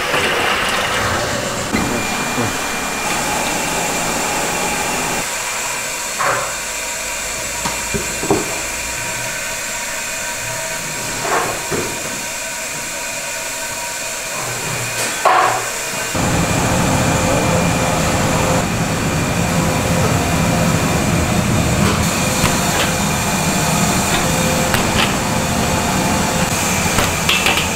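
Steam hissing steadily from a commercial rice-cake steamer, with a few short knocks of wooden steaming frames and metal trays; about halfway through the steam grows into a deeper, fuller rush as the makgeolli rice cakes steam.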